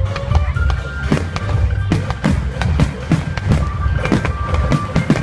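Fireworks bursting, several bangs a second with crackles, over music with held notes.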